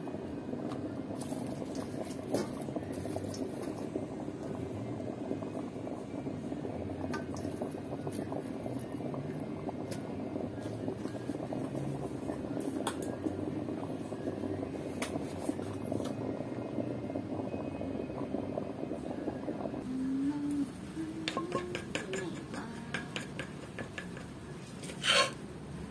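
Water boiling hard in the base of a steamer pot on the stove, a steady bubbling rumble that cuts off about 20 seconds in. Near the end, a few light clicks and one sharp clink of a utensil against a stainless steel bowl.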